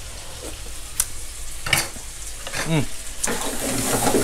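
Shrimp, chicken and shiitake mushrooms sizzling in seasoning sauce in a granite-coated frying pan. A few knocks of a wooden spatula against the pan, and the sizzle gets louder near the end as the food is stirred.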